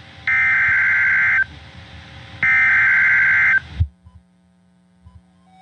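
Emergency Alert System SAME header: warbling two-tone digital data bursts carrying the alert's coded event, area and time, sent three times over NOAA Weather Radio. The last two repeats fall here, each about a second long with a second's gap, followed by a faint hum.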